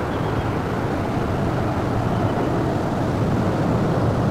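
Die-cast toy aeroplane rolling along a plastic toy track, a steady rumble.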